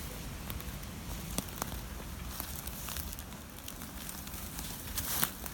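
Scattered small cracks and crackles of dry twigs and dead wood over a low steady rumble, with a few sharper snaps near the end.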